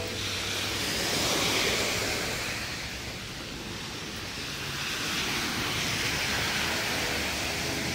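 Sneakers wading and splashing through shallow floodwater on a sidewalk: a continuous sloshing rush that swells twice.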